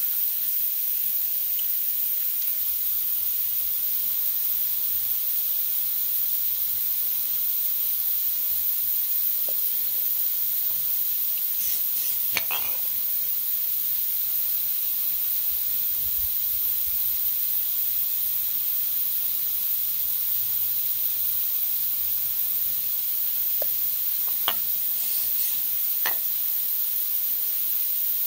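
A steady high hiss like sizzling, unchanging throughout, with a few faint clicks about halfway and near the end.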